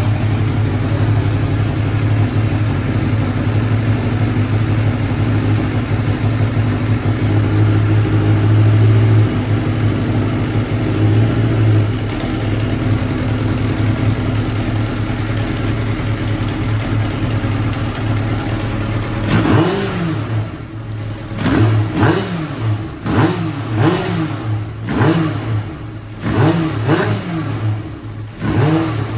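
2000 Kawasaki Ninja ZX-7R's 750 cc inline-four engine idling steadily as it warms up after being brought back from a no-crank, no-start condition. About two-thirds of the way through, the throttle is blipped over and over, roughly once a second, each rev rising and dropping straight back to idle.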